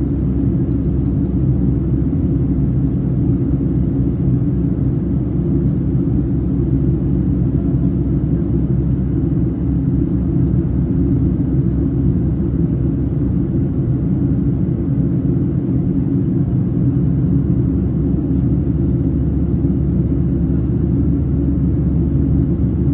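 Steady low rumble of a Boeing 737-800's CFM56-7B engines and rushing airflow, heard inside the passenger cabin while the airliner is airborne shortly after takeoff.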